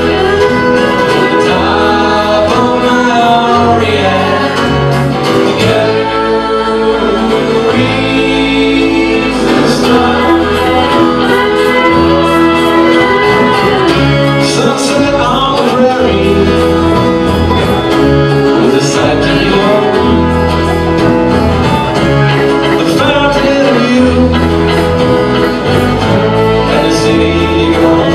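Live band playing a country tune, led by a bowed fiddle over acoustic guitar strumming, an upright bass stepping through low notes, and saxophone.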